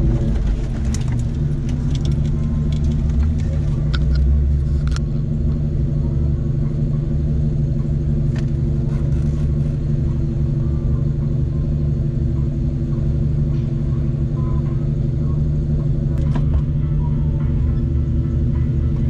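Jeep Cherokee XJ engine running steadily at low speed, heard from inside the cab as the Jeep creeps forward in first gear, with a deep rumble and a few light clicks in the first five seconds.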